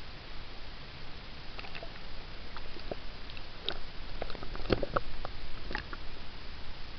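Pool water splashing and lapping against a camera held at the surface, a scatter of small clicks and splashes over a steady hiss, the loudest splash about two-thirds of the way through, as the camera dips under the water.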